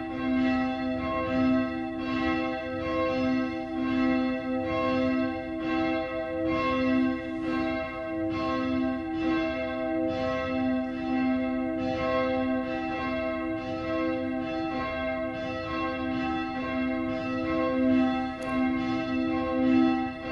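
Church bells ringing in a steady peal, struck about three times every two seconds, each strike ringing on into the next.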